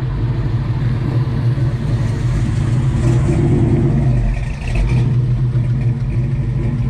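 1971 Plymouth Road Runner's stroker V8 running loud and steady as the car pulls slowly past, easing off briefly about four and a half seconds in.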